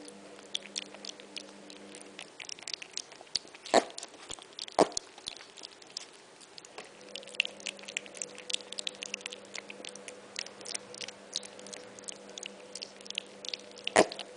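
Miniature piglet chewing and crunching solid food, a fast run of small wet clicks and smacks, with a few sharp knocks about four and five seconds in and again near the end.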